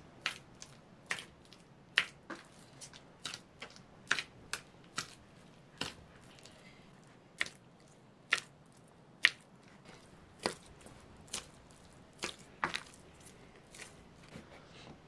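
Bolani dough being mixed and kneaded by hand in a plastic basin: irregular wet slaps and squelches, about one or two a second.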